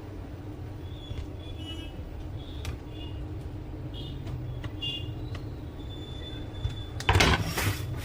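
Parts of an HP LaserJet M1005 laser printer being handled and fitted back during reassembly: scattered small clicks and taps over a steady low hum, then a loud scraping rustle about seven seconds in that lasts just under a second.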